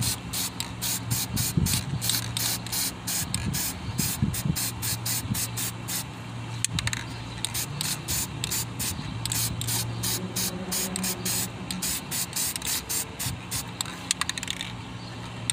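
Aerosol spray can hissing in many short bursts, about three or four a second, as rust reformer is spattered onto rusty engine pulleys and brackets.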